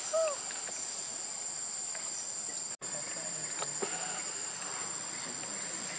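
Steady high-pitched drone of forest insects. A short squeaky call rises and falls just after the start, and the sound cuts out for an instant near the middle.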